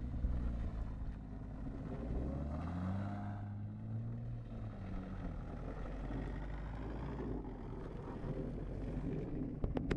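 Porsche Cayman S flat-six engine pulling away: the engine note climbs as the car accelerates about two to four seconds in, then drops and fades as the car drives off.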